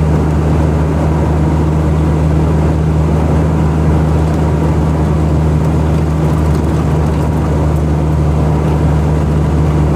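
Steady engine drone and road noise heard from inside a moving vehicle, low and unbroken.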